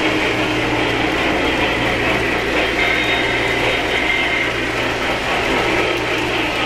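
O-scale three-rail model trains running on the track: a steady mechanical whir and clatter of their wheels and geared motors, over a low steady hum.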